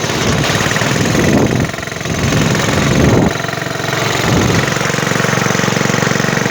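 Honda Supra motorcycle engine in a small homemade car, revved up three times, then settling to a steady idle about two-thirds of the way through.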